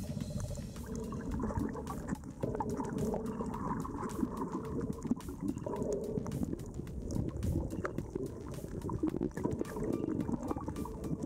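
Muffled underwater water noise recorded by a submerged camera: a steady gurgling, rushing wash with many small clicks scattered through it.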